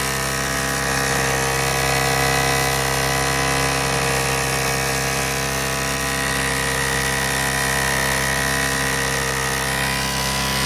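Washing-machine pump motor and an electric fan running together on a low-voltage DC rig, a steady whirring motor hum with a faint constant high whine.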